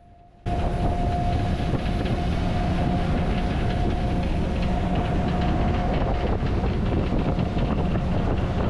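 Passenger ferry's engine running steadily underway, a constant low drone with a steady hum and rushing noise, starting abruptly about half a second in.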